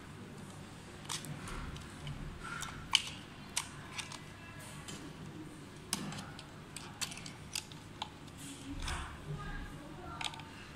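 Irregular small plastic clicks and taps as wire connectors are pushed onto a circuit board and the board and a screwdriver are handled inside a plastic housing, with soft rustling between the clicks.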